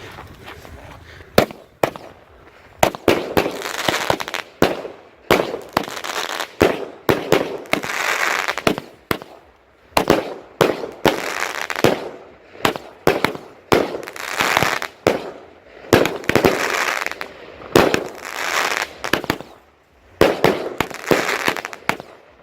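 Consumer firework cake firing a rapid series of loud shots, starting about a second and a half in, roughly one or two bangs a second, each followed by a short rush of noise, with a brief pause a little before the end.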